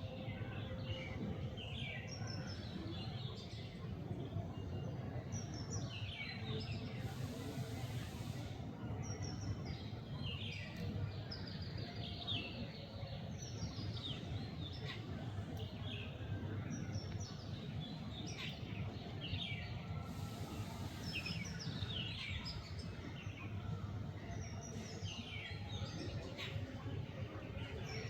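Birds chirping: many short, falling notes repeated throughout, over a steady low rumble.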